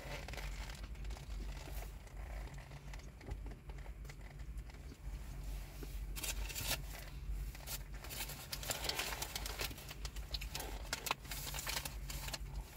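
Someone chewing a bite of doner kebab meat in naan with onions, mixed with short bouts of paper crinkling as the kebab is handled in its wrapping. The noises come in scattered clusters, thickest about halfway through and over the last few seconds, over a steady low hum.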